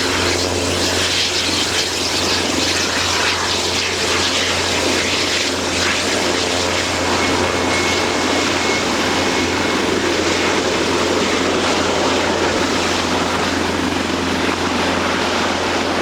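Eurocopter EC225 Super Puma helicopter landing, its twin turboshaft engines and rotors running loud and steady, with a constant low hum under the wash of rotor and turbine noise.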